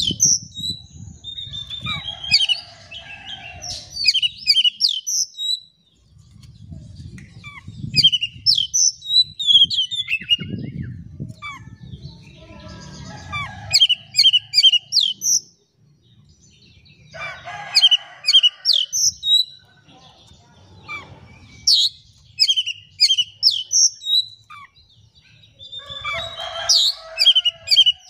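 Oriental magpie-robin singing: loud bursts of rapid sharp whistles and chattering notes every few seconds, with short pauses between phrases.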